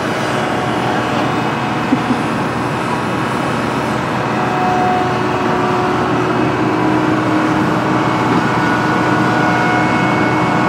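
Excavator running steadily, its engine noise overlaid with faint whining tones that shift in pitch and come and go, growing slightly louder about halfway through.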